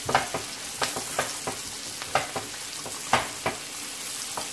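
Onions and beef burger patties sizzling in butter in a nonstick frying pan, while a slotted spatula stirs the onions, tapping and scraping against the pan in irregular clicks.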